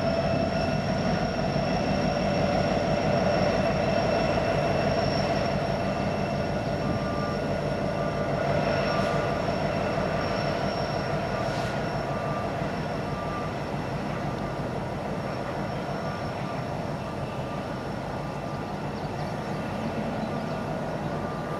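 Norfolk Southern diesel-electric locomotives running on the line: a steady rumble with a high whine over it, slowly getting quieter.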